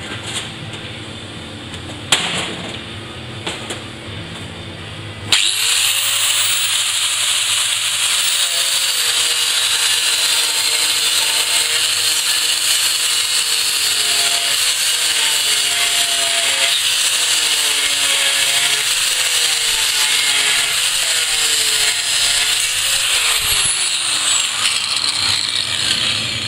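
Angle grinder starting up sharply about five seconds in and working on a thin steel wheel band, its pitch dipping and wavering as the disc bites into the steel, then switched off near the end and winding down.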